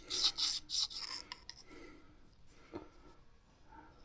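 Mora Garberg's scandi-ground carbon-steel blade rasping back and forth on a Fallkniven DC4 sharpening stone, about four quick strokes a second, stopping a little over a second in. Faint scrapes and a soft knock follow.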